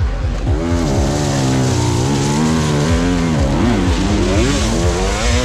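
Motocross motorcycle engine revving hard, its pitch rising and falling over several seconds with a brief dip about three and a half seconds in.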